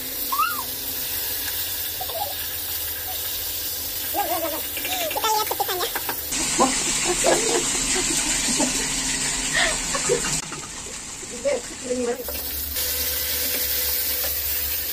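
A large whole fish frying in hot oil in a wok: a steady sizzling hiss of spattering oil, partly covered by a glass pan lid. The sizzle changes level abruptly a few times, and faint voices murmur over it.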